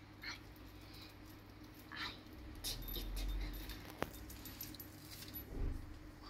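Budgerigars giving a few short chirps, with a single sharp tick about four seconds in.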